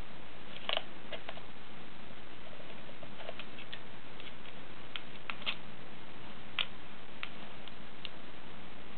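A cat pawing at a small lizard's cage: light, irregular taps and clicks, about a dozen of them in loose clusters, over a steady hiss.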